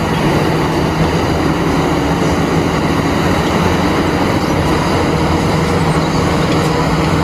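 Caterpillar 6015B hydraulic mining excavator's diesel engine running steadily under load as it digs and loads rock into a dump truck.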